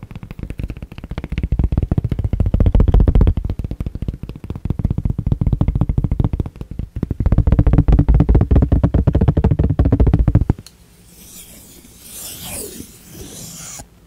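Rapid fingertip tapping on a tablet case's hard cover: a dense, deep-sounding drumming of many taps a second. It stops abruptly about ten seconds in.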